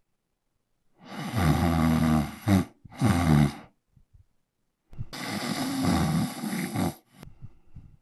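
A man snoring: a long snore about a second in, followed closely by a shorter one, then another long snore about five seconds in and a fainter one near the end.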